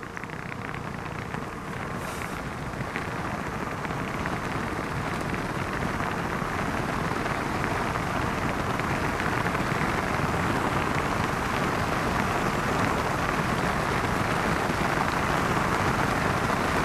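Wind rushing over a handlebar-mounted camera's microphone, with the tyre noise of a bicycle rolling on a tarmac lane. It grows louder over the first several seconds, then holds steady.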